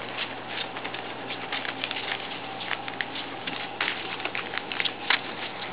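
Newspaper crinkling and rustling under young puppies as they shuffle and paw about on it: an irregular stream of small crackles and ticks.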